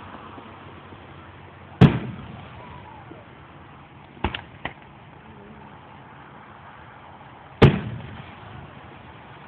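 Fireworks bursting overhead: two loud booms about six seconds apart, each rumbling away over a second or so, with three quicker, smaller pops between them.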